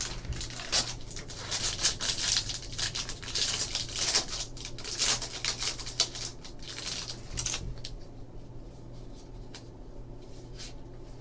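A 2013 Topps UFC Bloodlines trading card pack being torn open, its wrapper crinkling and tearing for the first several seconds, then quieter rustling and light clicks as the cards are handled.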